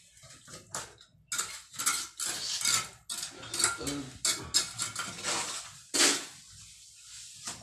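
Metal hand tool scraping and knocking against a masonry wall and rubble: a string of irregular, sharp scrapes, the loudest about six seconds in.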